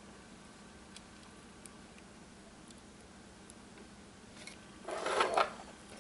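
A few faint clicks from handling the parts of a Cold Steel Recon 1 folding knife, then about five seconds in a short, louder scraping rustle as the knife is laid down on a foam plate.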